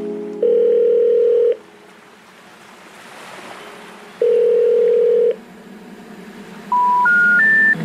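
Telephone signal tones: two long, steady beeps of about a second each, then three short beeps rising in pitch, the pattern of a phone network's special information tone that comes before a 'number not in service' message.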